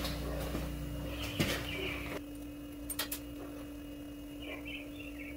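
A few light clicks and clinks of metal parts being handled, over a steady low hum, with a few faint high chirps.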